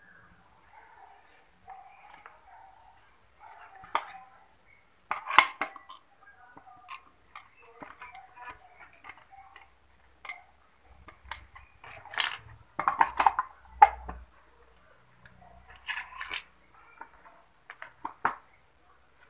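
Handling noise of a plastic speaker box, its cables and a circuit board being picked up, moved and set down on a workbench: an irregular string of clicks, taps and knocks, loudest about five seconds in and again around twelve to fourteen seconds in.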